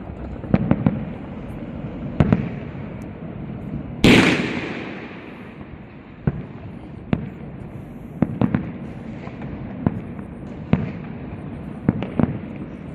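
Aerial fireworks castle exploding overhead: sharp shell bursts come about once a second. One much louder blast about four seconds in rumbles away over the next couple of seconds.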